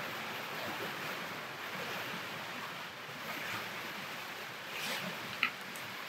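Steady rushing noise of heavy rain and wind, with a short high squeak near the end.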